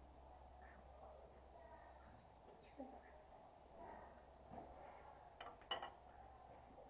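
Near silence with a low steady hum, faint high chirping of small birds, and a couple of faint knocks near the end.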